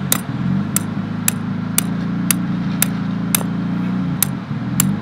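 Hammer striking metal about twice a second with one brief pause, driving an old lug nut onto the threads of a broken suspension U-bolt. A steady low hum runs underneath.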